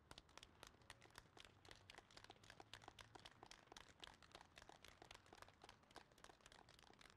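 Faint scattered applause from a small crowd: many quick, irregular claps.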